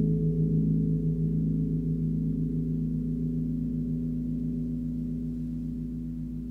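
Large gong tuned to G#1 (51.91 Hz) ringing on after a stroke, its low hum wavering and pulsing as it slowly fades.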